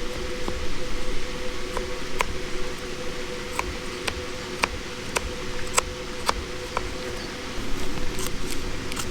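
Wood campfire crackling, with irregular sharp pops over a steady low hiss and a faint steady hum.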